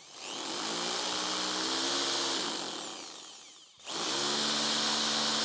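Corded electric drill boring into a concrete roof: the motor spins up to a high whine, runs about two seconds, winds down over a second or so, then starts again just before four seconds in and keeps running.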